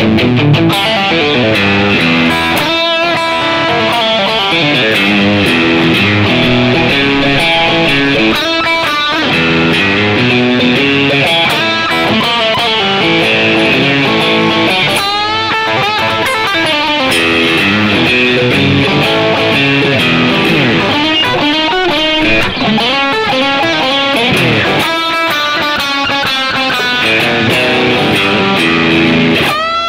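Tokai AST-52 HSS electric guitar played through a Yamaha THR amp with an overdriven tone, on the middle single-coil and bridge humbucker together. It plays a continuous run of riffs and ringing chords.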